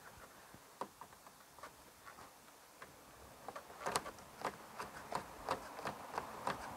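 Socket ratchet clicking as a nut is run down on a bolt, faint and scattered at first, then a steady run of sharper clicks about three a second from about halfway.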